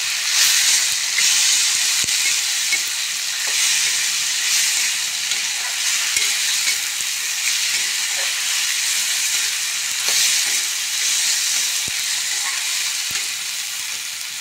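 Potato and ridge gourd flower sabzi sizzling in a metal kadhai while a flat metal spatula stirs it, the sizzle swelling with each stroke and the spatula now and then scraping and clicking against the pan. The stirring eases and the sizzle settles lower near the end.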